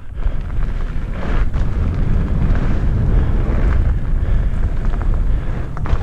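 Steady wind rush on a helmet-mounted microphone, mixed with the low rumble of mountainboard tyres rolling fast over a gravel track.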